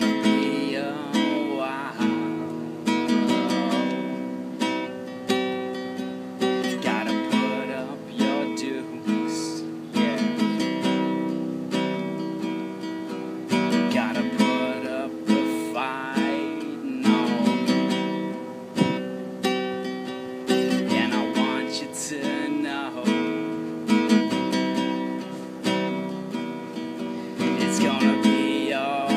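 Acoustic guitar strummed in a steady rhythm, chords ringing on between strokes.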